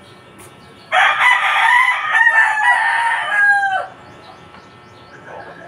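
A rooster crowing once, a loud call of about three seconds starting about a second in and dropping in pitch at its end. A fainter call follows near the end.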